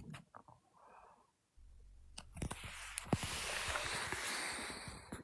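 A man's stomach growling, heard close up. A low rumble starts about a second and a half in, then a louder gurgling rush with small pops runs until near the end.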